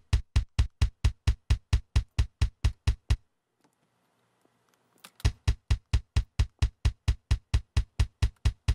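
Metal double-kick drum (the right-foot kick track) played back through a noise gate keyed by MIDI key spikes, with its release shortened so each hit is cut off tight. It is a fast, even run of short kick hits, about five or six a second. The hits stop a little after three seconds in and start again about two seconds later.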